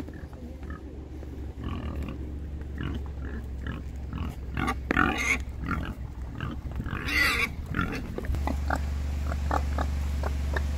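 Wild boars grunting, with louder short bursts about five and seven seconds in. A steady low hum comes in near the end.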